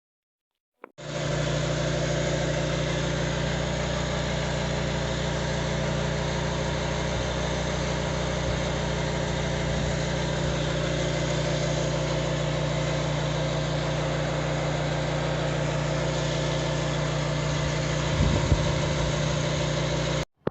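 An engine running steadily at a constant speed, starting abruptly about a second in and cutting off just before the end.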